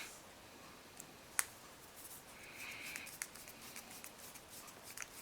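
Small screwdriver turning a tiny screw into a plastic model-kit part: one sharp click about a second and a half in, then light clicking and scraping with a brief squeak as the screw bites into the plastic.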